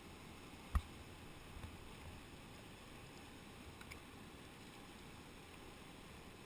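Faint, steady rush of a shallow whitewater rapid from a kayak on the calm pool above it. One sharp knock comes about a second in, with a few lighter taps after it, from the kayak and paddle.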